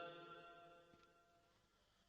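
Near silence: the tail of a man's chanted Quran recitation fades out in the first moments, then a still pause.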